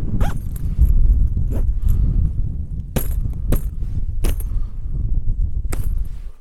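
Strong wind buffeting the microphone with a constant low rumble, broken by about six sharp clicks and clinks of tent gear being handled as the tent is packed away.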